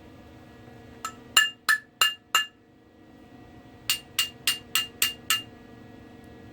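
Hammer striking steel with a ringing metallic clang: five quick blows about a second in, then six more a couple of seconds later, roughly three a second.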